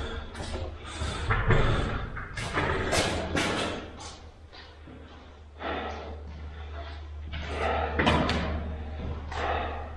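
A series of irregular thumps and bangs over a steady low hum.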